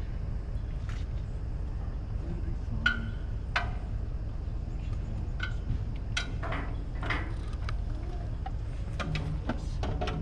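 Loading a motorcycle onto a folding trailer: sharp knocks and clicks over a steady low rumble, with the two loudest knocks about three and three and a half seconds in.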